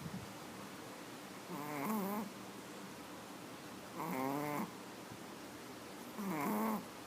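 A sleeping pet snoring: three short, pitched, wavering snores about two seconds apart.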